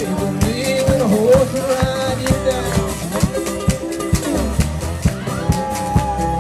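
A man singing a folk-blues song to his own acoustic 12-string guitar, the voice bending and wavering over a steady picked rhythm, with one long held note near the end.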